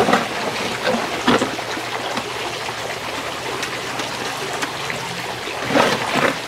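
Wet concrete being scooped by hand from a plastic mixing tub into a plastic mold: a few short scrapes and knocks, the loudest cluster near the end, over a steady hiss with a faint low hum.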